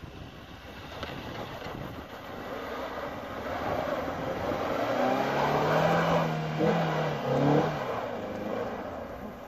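Suzuki Swift's engine pulling the car up a grass slope, growing louder as it comes near, with its pitch rising and dipping as the driver works the throttle, loudest about six to seven and a half seconds in.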